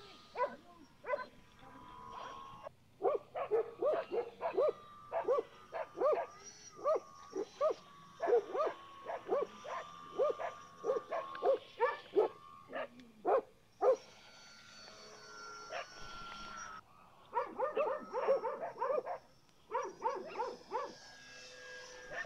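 A dog barks over and over in quick runs of short barks: one long bout, a pause of a few seconds, then a second bout. Under it runs the steady, thin whine of the RC plane's electric motor and propeller.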